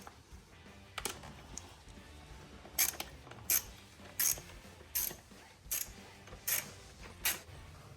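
Socket ratchet wrench clicking in short bursts, one about a second in and then a steady run of about one every three quarters of a second, as the distributor cap screws are backed out.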